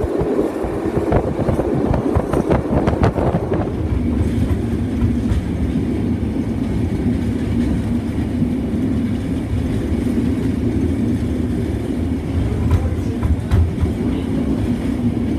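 Steam-hauled passenger train running at speed: a rumble from the carriage wheels on the rails, with rapid clicking for the first few seconds. About four seconds in, the sound changes to a steadier, deeper rumble heard close behind the tender of Victorian Railways R class steam locomotive R761.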